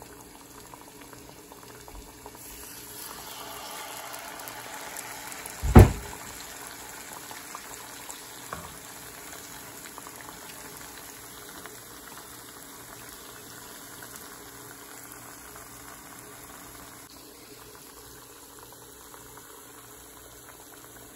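Mung kavum deep-frying in hot coconut oil in a pan: a steady bubbling sizzle that grows louder about two and a half seconds in. A single sharp knock near six seconds in is the loudest sound, with a lighter tap a few seconds later.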